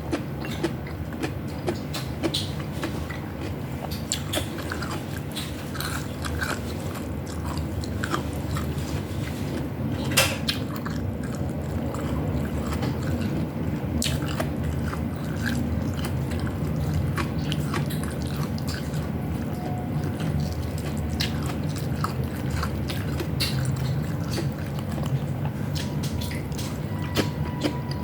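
Close-up chewing and biting of food, with scattered sharp clicks of utensils, one louder click about ten seconds in, over a steady low hum.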